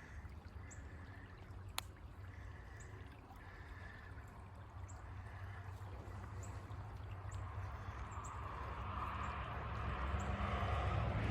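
Creek water running, with short high bird chirps repeating about once a second and one sharp click about two seconds in. A louder rushing noise swells over the last few seconds.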